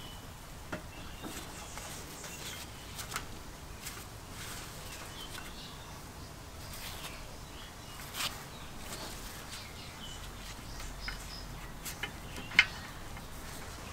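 Small clicks and taps of rubber and plastic parts being handled and pressed onto a small engine's carburetor, with one sharper click near the end. Faint bird chirps sound in the background.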